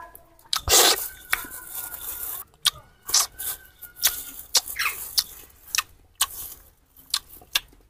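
Irregular sharp clicks and taps with rustling, the loudest a knock and rustle about a second in.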